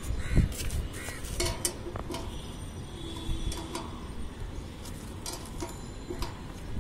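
A crow cawing a few times in the first second, then light metallic clicks and taps as a satellite dish's mounting bracket is handled and adjusted, over a low steady background hum.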